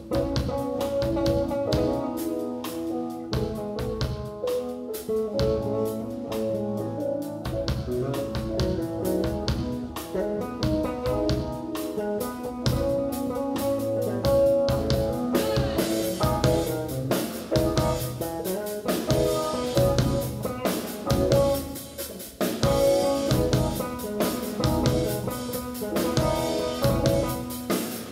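Live band playing an instrumental passage on electric bass, drum kit and keyboard. The bass and drums fill out about seven seconds in, and the cymbals get busier in the second half.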